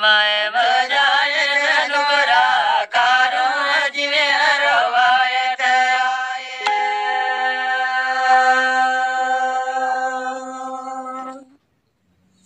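A man singing a Gojri bait (folk song) unaccompanied. His voice winds through wavering, ornamented phrases, then holds one long steady note for about five seconds before stopping.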